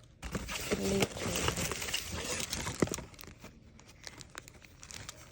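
Packaging being crinkled and rustled as souvenirs are unwrapped, dense and busy for the first three seconds, then dropping to scattered light crackles.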